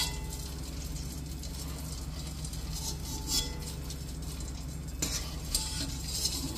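Wire spider strainer scraping and clinking against a stainless steel kadai and colander while fried boondi are scooped out of hot oil and tipped out, with a few sharp metal taps; the oil sizzles under it.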